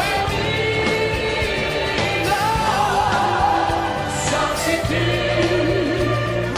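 Music: a song with a sung melody in long, wavering held notes over a steady backing track.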